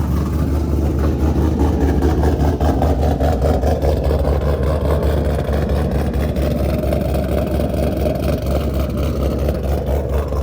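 Cammed V8 of a fifth-generation Chevrolet Camaro SS idling loud and choppy just after being started; it is a warm start, the engine having been run that morning.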